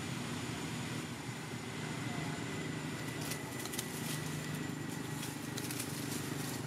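Steady low hum of a distant engine, with dry leaf litter crackling in short bursts from about three seconds in.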